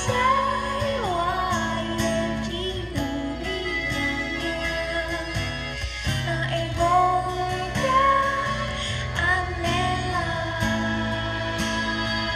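A live pop song played by a band: a woman sings a melody over acoustic guitar, electric bass, drums and keyboard.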